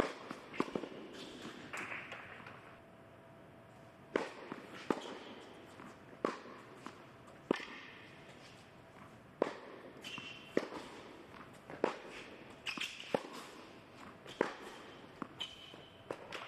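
Tennis ball struck by rackets and bouncing on an indoor hard court during a baseline rally: a run of sharp pops about every second or so. Short high sneaker squeaks come between some of the shots.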